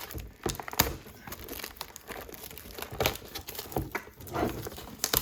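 Packaging being unwrapped: irregular crinkling and tearing, with sharp crackles scattered through.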